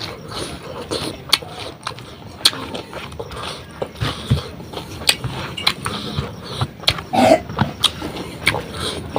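A person eating close to the microphone: wet chewing and lip smacking, with sharp mouth clicks throughout and a brief throat sound about seven seconds in.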